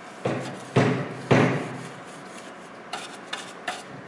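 Stiff parts-cleaner brush scrubbing metal chips off a metal-cutting bandsaw, three rough scraping strokes in quick succession, followed by a few light clicks.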